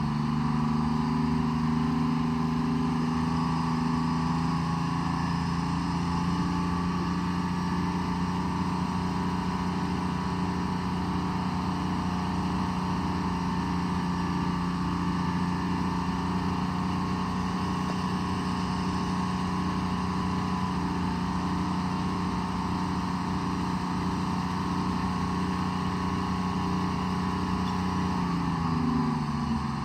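Diesel engine of a Tree Farmer log forwarder running steadily under load. The engine speed drops near the end.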